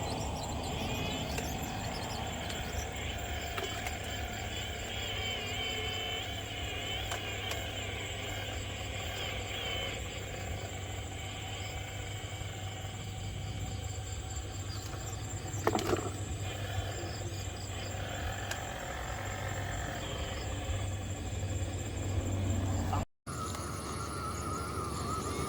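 Small electric motors and gearboxes of radio-controlled model trucks running, a whine that wavers in pitch over a steady low hum, with a single knock about two-thirds of the way through.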